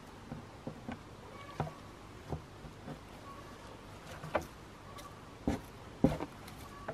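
Light, scattered knocks and clicks, about eight in the space of a few seconds, from a white plastic sap bucket, its lid and the sap tubing being handled.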